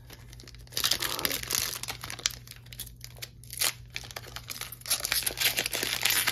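Foil Pokémon booster-pack wrapper crinkling and tearing as it is ripped open by hand: a dense run of crackles starting about a second in, with a brief lull about halfway.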